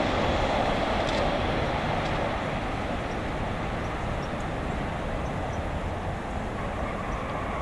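Jet engine noise of a Boeing 767-300ER airliner receding after passing overhead on landing: a steady rumble and rush that eases off a little over the first few seconds.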